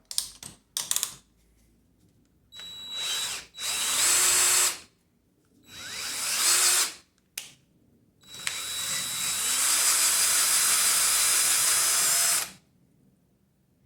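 Power drill driving a tap into metal, run in three short bursts and then one steady run of about four seconds with a high whine. Power-tapping like this risks breaking the tap.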